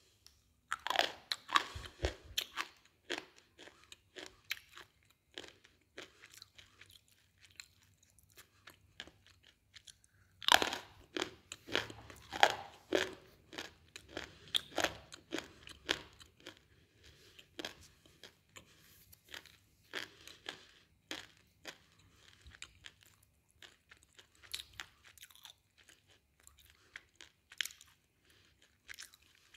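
Slate being bitten and chewed: loud, crisp crunches at a bite about a second in and another about ten seconds in, each followed by a run of crunching chews that grow sparser and softer.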